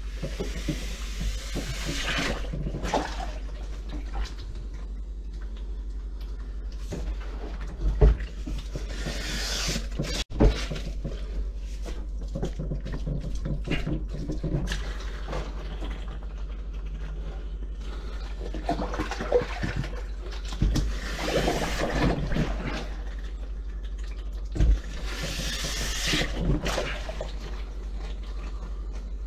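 Accordion-style bellows plunger pumped in a sink full of standing water, with water sloshing and surging in several waves and a couple of sharp knocks about a third of the way through. The sink drain is clogged and backed up.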